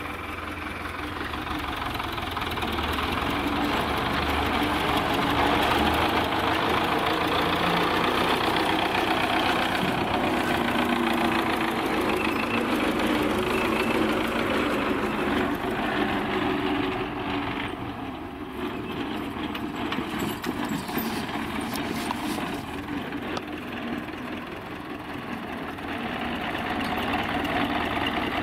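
Diesel engine of a wheeled front-loader tractor running, louder through the first half, easing off a little past the middle and building again near the end as the tractor comes close.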